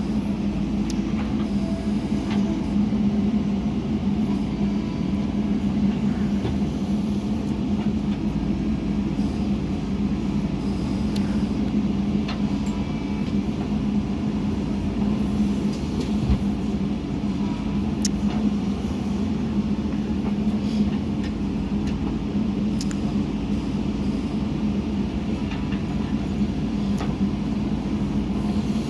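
JCB 3DX backhoe loader's diesel engine running steadily with an even drone, with a few sharp clicks or clinks now and then.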